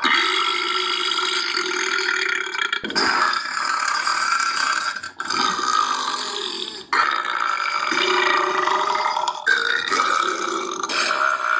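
Long drawn-out burps, about five one after another, each lasting two to three seconds.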